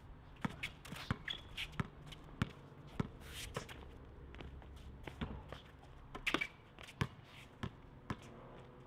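Basketball bouncing on an outdoor asphalt court during one-on-one play: a string of sharp dribble strikes at an uneven pace, about two a second.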